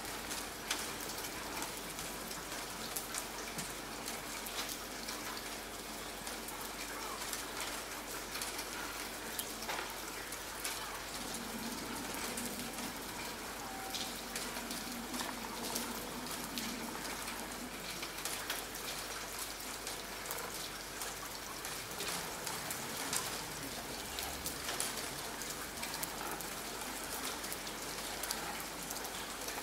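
Steady rain, with many small drops ticking as they fall.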